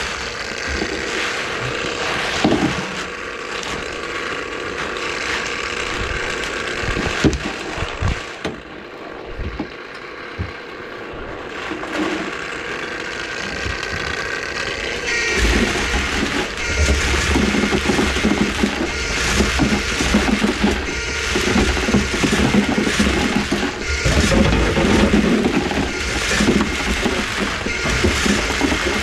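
Electric drain-cleaning machine running, its steel cable spinning and rattling inside a kitchen sink drain line as it works through a grease clog. The noise drops off from about 8 to 12 seconds in, then comes back louder with a steady low rumble from about 15 seconds.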